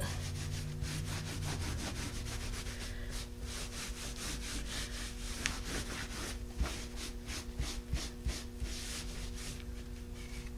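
A cloth buffing dark wax on a textured, chalk-painted wooden frame: quick, even back-and-forth rubbing strokes, with a faint steady hum underneath.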